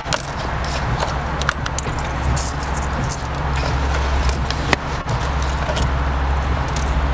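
Loose coins jingling and clinking as a hand rummages through a car's centre-console coin tray for quarters, with many quick clinks over a steady low hum inside the car.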